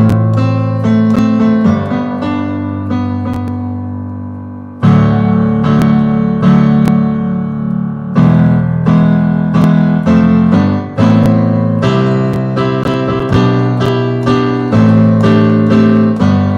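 Digital piano played with both hands: full chords over a held bass, struck every second or so and left to ring, fading away before a loud new chord about five seconds in.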